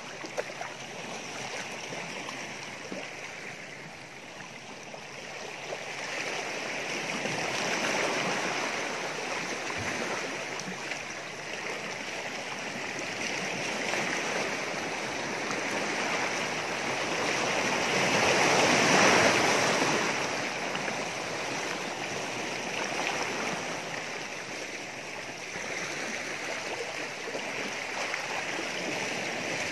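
Small sea waves washing over a rocky shore: a steady rushing that swells and ebbs every few seconds, loudest about two-thirds of the way through.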